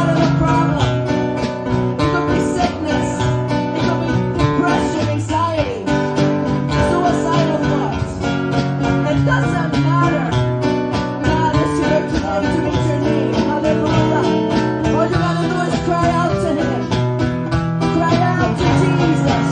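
Instrumental passage of a worship song, with guitars playing held chords over a steady beat.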